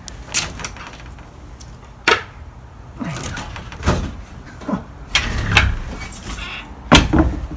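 A series of sharp knocks and clunks, about five, roughly a second and a half apart, over a low rumble.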